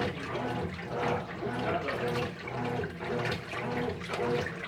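Consul CWS12AB washing machine agitating in its rinse cycle: water churning and sloshing, with the motor humming in short strokes that repeat in a steady back-and-forth rhythm.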